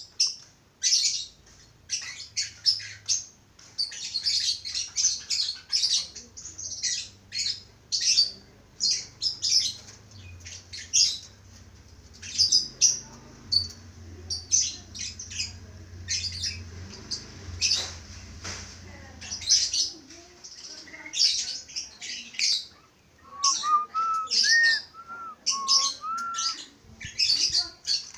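A flock of budgerigars chattering: a dense stream of short, rapid, high chirps and squawks. A low steady hum sits underneath through the middle, and a few short rising whistled notes come near the end.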